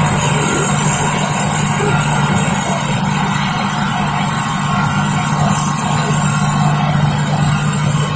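Steady drone of running machinery on a modified corn starch processing line, a low hum with a high hiss over it.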